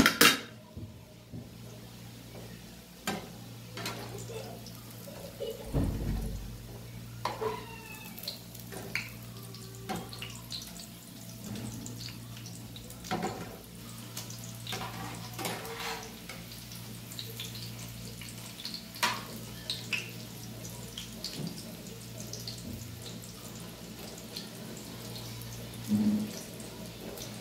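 Minced-meat burger patties shallow-frying in oil in a steel frying pan, sizzling with scattered crackles and pops. A metal spatula clinks and scrapes against the pan a few times, most loudly near the end as the patties are turned.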